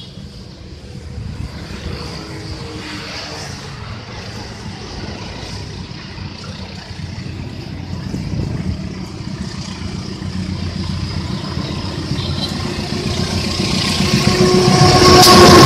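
CC 203 diesel-electric locomotive hauling a passenger train approaching, its engine rumble growing steadily louder until it is right alongside at the end. Over the last few seconds a steady humming tone and the rush of the train join in.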